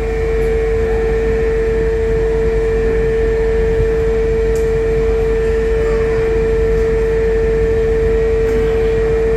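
A steady drone held at one mid pitch over a low, even hiss and rumble, inside the stopped Ocean Express funicular car.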